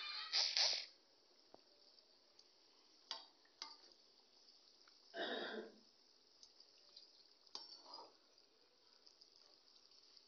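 Kachoris frying gently in hot oil in a kadai, a faint steady sizzle, with a few light clicks of a metal slotted spoon against the pan. Two short, louder noises stand out, one about half a second in and one about five seconds in.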